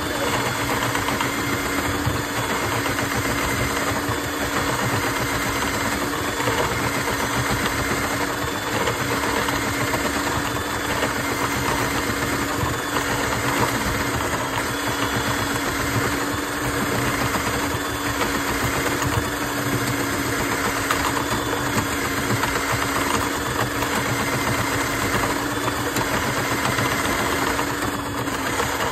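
Powered drain-cleaning machine running steadily with a constant-pitched hum while clearing a blocked kitchen sink drain line.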